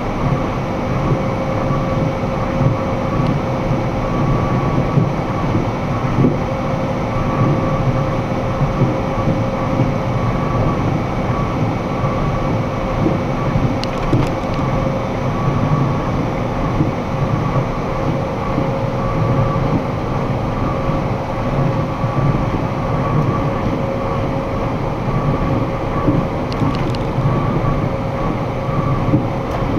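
Box truck's cab at highway cruising speed, about 70 mph: steady road and engine rumble with a constant droning hum. Two faint ticks come about halfway through and again near the end.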